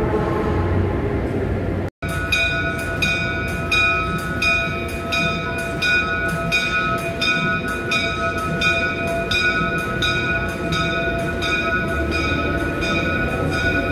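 Amtrak Amfleet passenger coaches rolling past along a station platform: a low rumble with steady high-pitched wheel squeal and an even clicking about one and a half times a second. The sound drops out for an instant about two seconds in.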